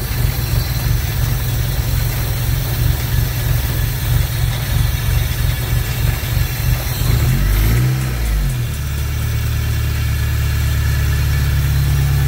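Toyota 4A-GE four-cylinder engine, with its idle air control valve blocked off, running unevenly at first. About eight seconds in it revs up briefly and falls back, then settles into a steady idle.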